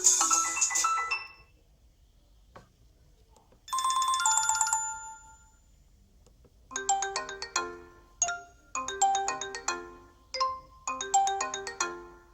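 Alcatel 3088 phone's built-in ringtones playing through its speaker: one tune stops about a second and a half in, a short bright jingle plays around four seconds in, and after a pause a new melodic ringtone starts, repeating a short phrase of bell-like notes.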